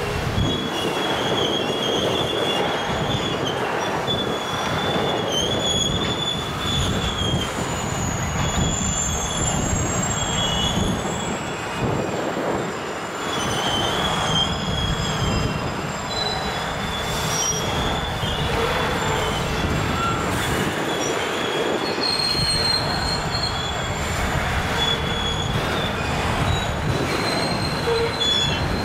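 Rail train of flatcars loaded with welded rail rolling slowly past, backing up. Steady rumble of the cars with high-pitched wheel squeal that comes and goes, and wind buffeting the microphone.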